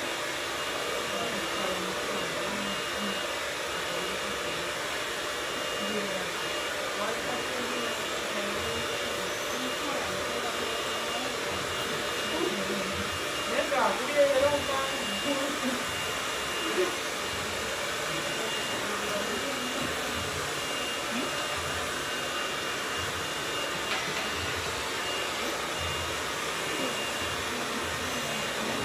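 A hair dryer running steadily: a constant rushing noise with a thin high whine over it. Voices break in briefly about halfway through.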